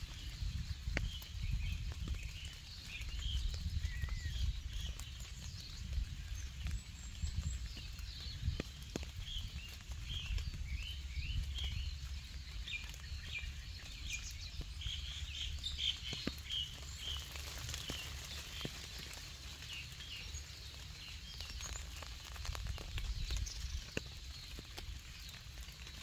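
Several small birds chirping and singing, busiest from about ten to sixteen seconds in, over light rain pattering and a steady low rumble.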